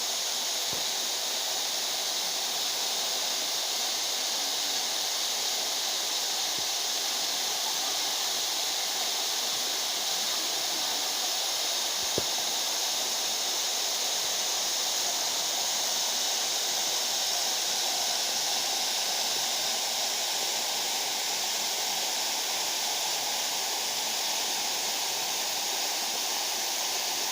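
Waterfall: a steady, unbroken rush of falling water, with one small click about twelve seconds in.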